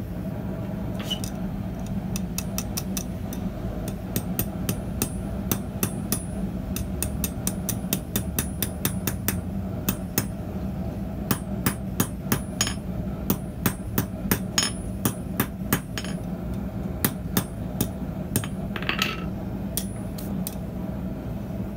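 A hand hammer striking red-hot coiled 6 mm mild steel bar on an anvil: a long run of sharp ringing blows, a few a second with short pauses between groups, over a steady low hum.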